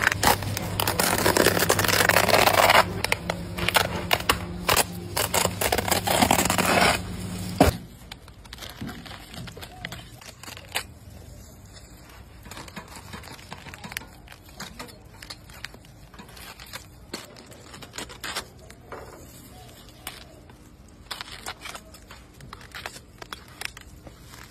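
Knife cracking and scraping into the crisp, glassy skin of a whole spit-roasted pig: scattered sharp crackles and clicks. The first several seconds are covered by loud background noise and voices, which drop away abruptly, leaving the crackles clearer.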